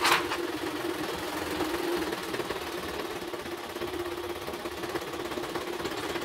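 An embroidery machine running steadily, a mechanical hum with a fast, even rattle, and a sharp click right at the start.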